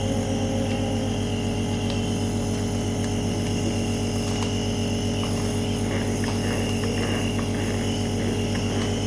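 Electric compressor nebulizer running: a steady motor hum with a fine, even buzz.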